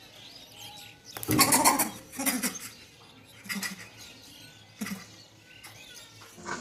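Short animal cries in four bursts, the loudest and longest about a second in.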